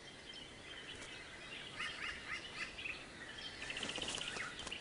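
Birds chirping over faint forest ambience: a series of short chirps, with a quick rattling trill about two thirds of the way through.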